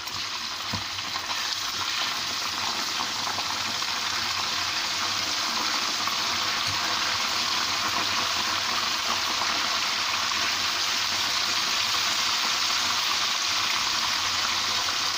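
Marinated chicken pieces shallow-frying in oil in a non-stick frying pan over low heat: a steady sizzle, a little louder after the first couple of seconds.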